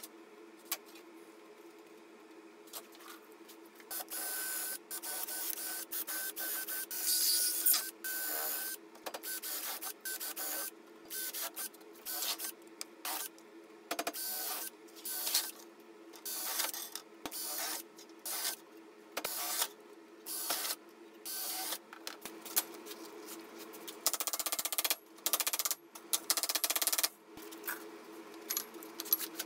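Cordless drill boring a row of small holes through thin galvanized steel sheet. It runs in many short bursts of a second or less with pauses between, over a steady low hum.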